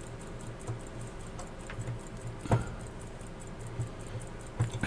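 Small metal clicks and taps as a small bench vise and its fittings are handled and tightened by hand, with one sharper click about two and a half seconds in.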